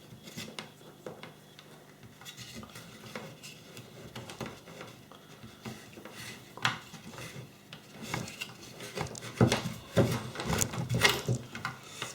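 Small parts being handled: light clicks and clinks of cables being fed into a plastic project box, with louder clattering near the end.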